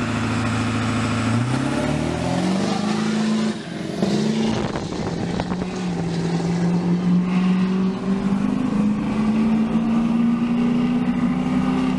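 Pickup truck engine pulling away from a stop: it idles steadily, then rises in pitch over about two seconds, breaks briefly as it shifts gear, and then runs on steadily under light load.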